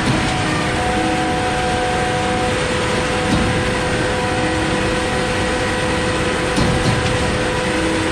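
A heavy diesel truck engine running steadily at constant speed, with a steady whine over it and slight swells about every three seconds.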